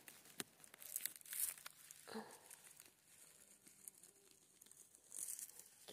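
Faint rustling and crackling of moss and grass, with scattered small clicks, as fingers work a cluster of chanterelle mushrooms loose from the ground.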